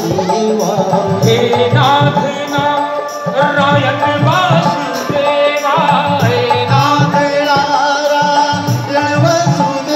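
Music: a voice singing a melody over a repeating drum accompaniment.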